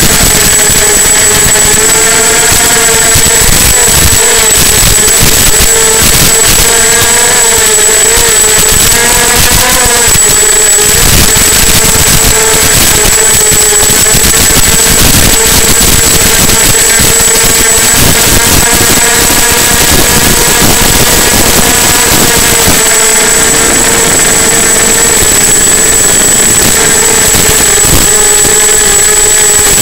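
EMAX 250 quadcopter's four brushless motors (EMAX MT1806 2280KV, 5040 props) buzzing in flight, their pitch wavering up and down with throttle, over a loud steady hiss.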